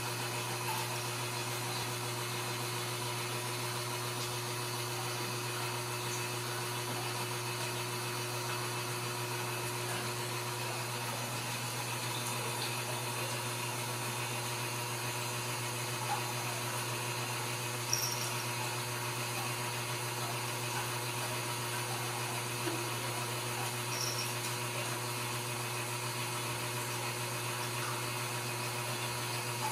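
A steady low machine hum with an even hiss, unchanging throughout, with a few faint ticks on top.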